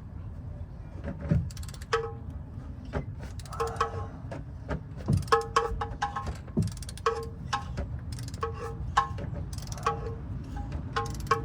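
Background music of short, repeated plucked notes over a low steady rumble, with many sharp clicks scattered through it.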